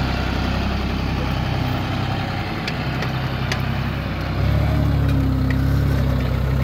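Farm tractor's diesel engine running steadily while working a front-mounted Bull loader. About four and a half seconds in, the engine gets louder and fuller, and a few faint clicks sound over it.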